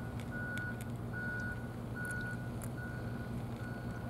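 A vehicle's reversing alarm, beeping at one steady pitch about once every 0.8 seconds over a low, steady engine hum.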